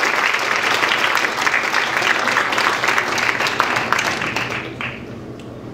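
Audience applauding, many people clapping together, dying away about four and a half seconds in.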